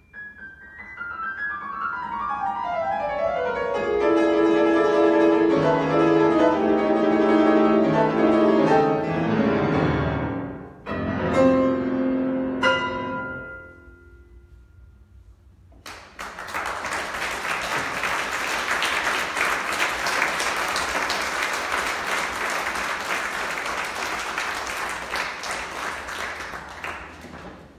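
Grand piano closing a piece: a descending wash of notes under the sustain pedal builds to loud ringing chords, then a few last chords die away. About sixteen seconds in, the audience starts applauding, a steady clapping that fades near the end.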